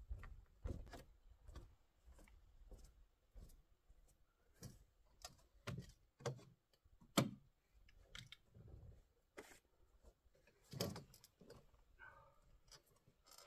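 Quiet scattered knocks and creaks from a folding camp chair's frame being handled and sat in, with bare feet on wooden deck boards; the sharpest knock comes about seven seconds in.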